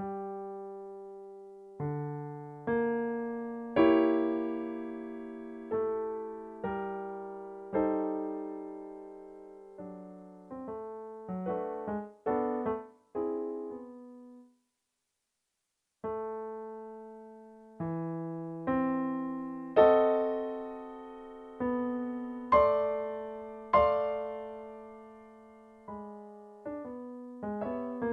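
Solo piano music: slow struck chords and single notes that ring and fade, with a short silence about halfway through before the playing resumes.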